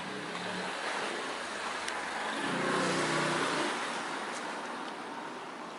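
A car driving past, growing louder to a peak about halfway through and then fading away, with a low engine hum over the hiss of its tyres.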